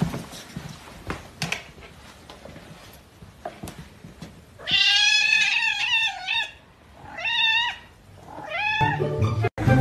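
Domestic cats fighting: a loud, wavering yowl of about two seconds, then two shorter rising-and-falling cries, after a few faint knocks.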